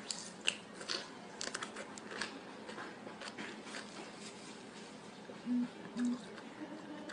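A man biting and chewing a slice of lemon, peel and all, with sharp wet clicks of the mouth through the first four seconds or so. Near the end come two short closed-mouth hums about half a second apart.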